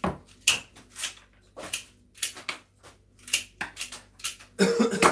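Flower stems and foliage of a hand-tied bouquet rustling and crackling as it is bound by hand, in sharp crisp strokes about two a second, with a longer, louder crackle near the end.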